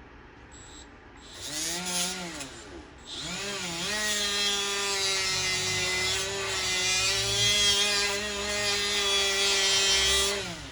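Handheld electric power tool working metal. Its motor runs up and down briefly, then runs steadily for about seven seconds with a steady whine and a hiss of cutting, before spinning down near the end.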